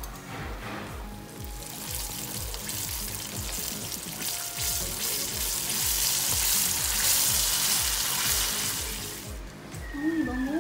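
Chicken drumsticks deep-frying in hot oil in a stainless steel pot, giving a loud, steady sizzle over background music with a steady beat. Near the end the sizzle dies down as a glass lid goes onto the pot.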